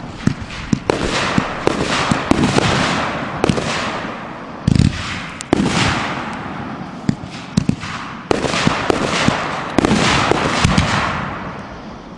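Aerial fireworks bursting in quick succession: about a dozen sharp bangs, roughly one a second, each followed by a fading crackle and hiss of the falling stars, with a short run of smaller quick cracks a little past the middle.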